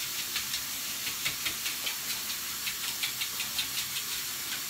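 A comb scratching through thick hair in quick light strokes, about four or five a second, over a steady background hiss.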